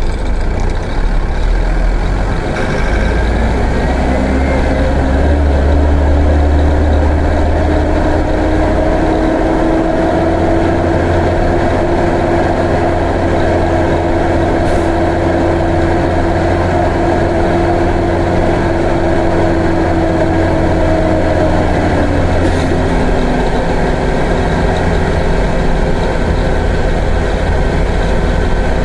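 Mercedes-Benz OF-1418 bus's diesel engine running under load while driving. Its note climbs a few seconds in, holds high for a long stretch, then falls away about three-quarters of the way through.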